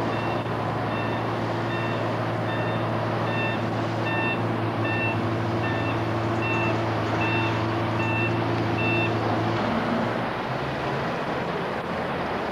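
Mobile crane's engine running with its reversing alarm beeping steadily, about twice a second. The beeping and the engine drone both stop about three-quarters of the way through.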